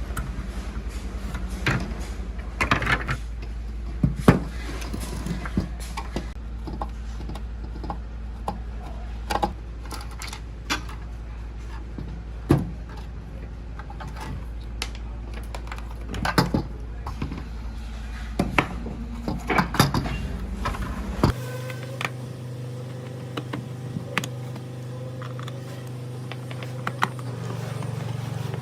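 Scattered clinks and knocks of metal parts and hand tools being handled, typical of an old rusty electric fan being worked on by hand, over a steady low hum. About 21 seconds in the hum changes abruptly to a different steady hum.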